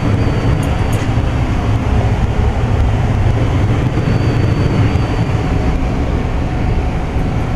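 Broan heat pump's indoor air handler running: a steady rush of moving air over a low hum from the blower, with a faint high whine that comes and goes.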